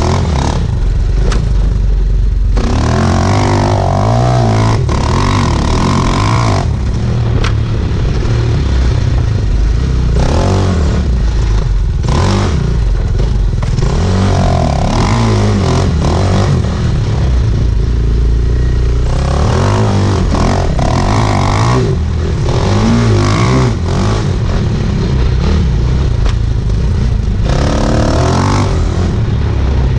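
Off-road sidecar outfit's motorcycle engine running hard, revving up and down repeatedly as it climbs and brakes over a rough dirt trail, with rattling from the machine.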